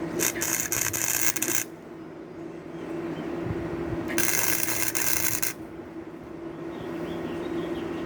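Gasless flux-core wire welder striking two short spot welds, each a burst of arc noise lasting a little over a second, about three seconds apart, over a steady low hum.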